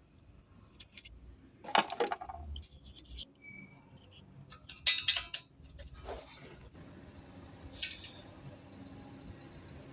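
Metal hand tools clinking and clattering in a few short bursts during a brake pad change, the loudest about two and five seconds in, with a single sharper clink near eight seconds.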